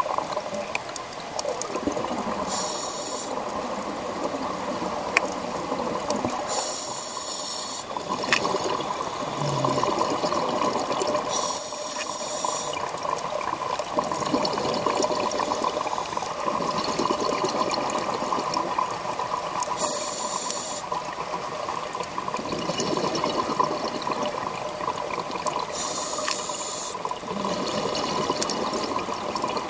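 Scuba diver breathing underwater through a regulator: a short hiss of inhaled air every several seconds, with bubbling from the exhaled air between the hisses. A steady faint hum runs underneath.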